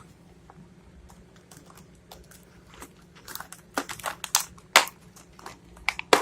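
Hard plastic packaging being handled and pried at: irregular crinkles and clicks start about halfway through, with a couple of sharper snaps near the end.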